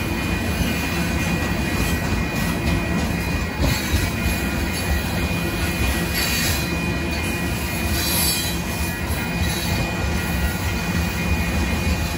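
Freight train's open-top hopper cars rolling past: a steady rumble of steel wheels on rail, with a sharp clack just before four seconds in and brief high wheel squeals a little after halfway.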